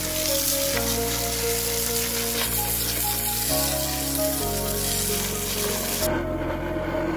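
A jet of water hissing and splashing as it sprays into an open, drained car differential housing, washing it out; the spray cuts off suddenly about six seconds in. Background music plays throughout.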